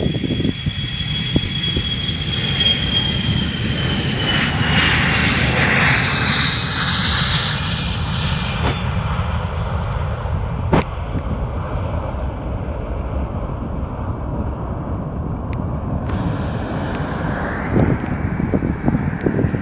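Airbus jet airliner's turbofan engines at takeoff power: a high whine sinking slightly in pitch, then a broad rushing noise that swells for a few seconds and fades, leaving a low rumble. One sharp click about eleven seconds in.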